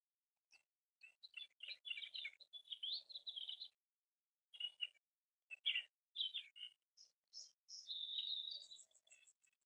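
Songbirds singing: bursts of quick high chirps and trills with short pauses between, ending in a longer warbling phrase.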